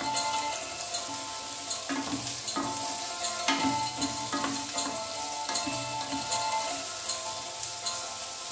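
Sliced garlic and ginger sizzling in olive oil in a frying pan, stirred with a wooden spatula that scrapes and knocks against the pan several times.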